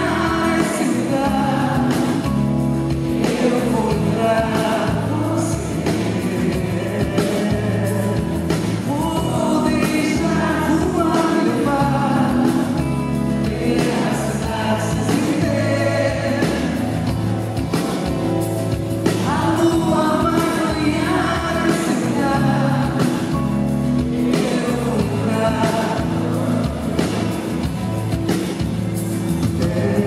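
A woman singing a Portuguese-language ballad live, accompanying herself on a nylon-string electro-acoustic guitar.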